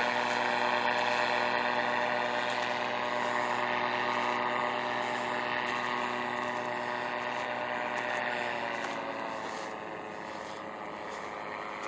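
Paramotor engine and propeller droning steadily in flight overhead, dropping slightly in pitch and fading about nine seconds in as it moves away.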